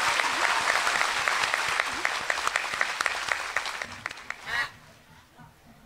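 Audience applauding steadily, many hands clapping, dying away about four seconds in. A single short bird call follows near the end.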